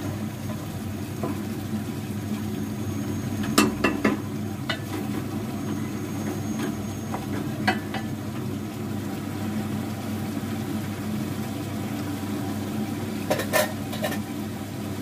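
Beef and tomato frying in a metal pot on a gas stove, stirred with a spoon that knocks against the pot a few times: a cluster of clicks about four seconds in, one near eight seconds and a few more near the end. A steady low rush runs underneath.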